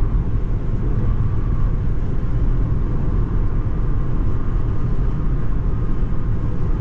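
Steady low road and tyre rumble heard inside a Tesla's cabin, cruising at highway speed (about 55 mph) with no engine sound.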